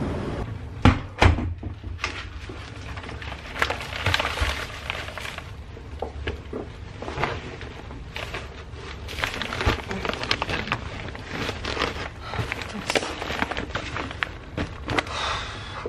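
Grocery bags and their contents being handled: a string net bag and a canvas tote rustling, with scattered clicks and knocks as items are moved and set down, and two sharp knocks about a second in.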